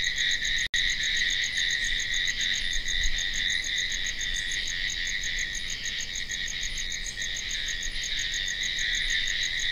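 Steady night chorus of crickets: a continuous high trill with a fast, evenly pulsing chirp above it.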